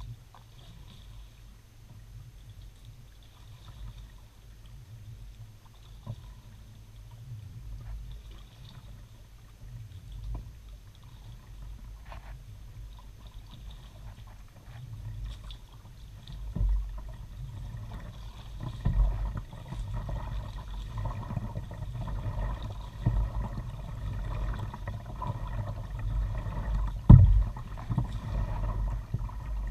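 Kayak under way: water splashing and lapping at the hull and a low wind rumble on the bow-mounted camera's microphone, with a few sharp knocks, the loudest near the end. It grows louder and busier about two-thirds of the way in.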